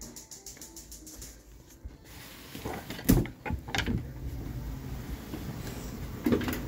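A few sharp clunks and knocks, the loudest about three seconds in and another near the end, over a low rumble: a clothes dryer's door being opened and the laundry handled.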